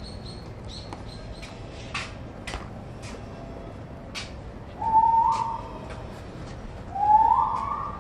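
Two whistled notes, each gliding up in a step, about five and seven seconds in, the second one the longer. A few light clicks and taps come before them.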